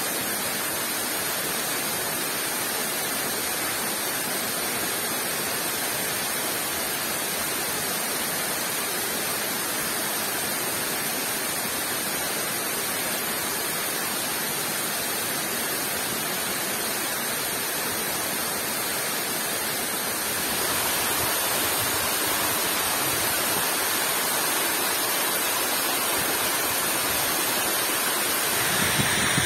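Heavy rain and a nearby waterfall make a steady, even rush of water noise. About twenty seconds in it steps up a little louder, and a couple of soft low knocks come near the end.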